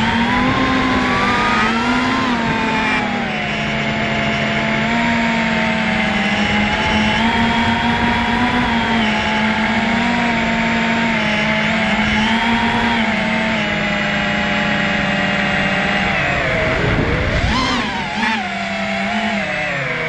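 FPV drone's electric motors whining, several tones together whose pitch rises and falls with the throttle. Near the end the pitch drops low and then sweeps sharply up and back down.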